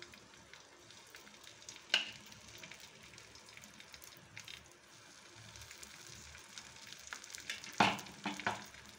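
Egg-dipped bread slice frying in oil in a nonstick pan: a faint, soft sizzle with small crackles. A sharp knock comes about two seconds in, and a few more knocks near the end.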